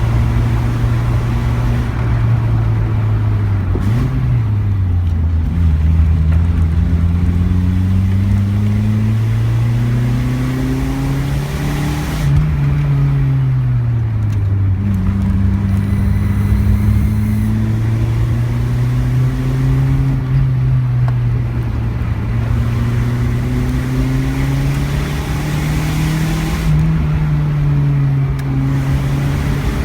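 Car in motion: a steady droning hum that slowly rises and falls in pitch with speed, over low road rumble.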